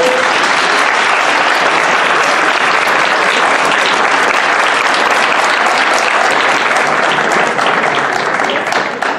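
Audience applauding, many people clapping at once; the clapping eases slightly near the end.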